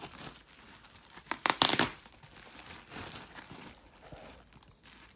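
Bubble wrap crinkling and rustling as it is handled and pulled off a packed piece of furniture, with a short, loud ripping of the packing about a second and a half in.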